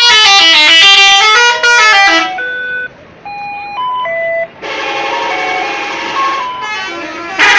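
Telolet musical air horns playing a tune. A loud run of quickly stepping notes lasts about two seconds, followed by softer single notes changing pitch, then a held chord, and a loud blast again near the end.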